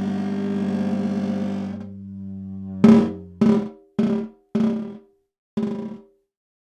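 Snare drum played with a superball mallet: the rubber ball dragged across the head draws a rough, sustained groaning tone that stops about two seconds in. Then come five sharp strikes on the head, roughly half a second apart with a longer gap before the last, each ringing at a low pitch and fading.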